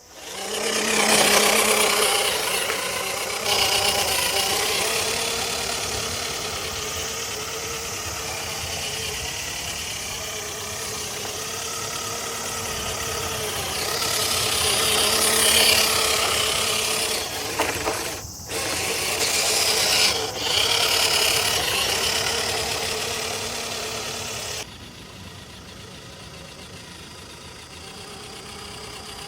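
WPL C34 RC car driving over rough ground: the small electric motor and gears whine steadily under the rasp and rattle of tyres and body over the uneven surface. The sound dips briefly twice about two thirds of the way through, then becomes quieter for the last few seconds.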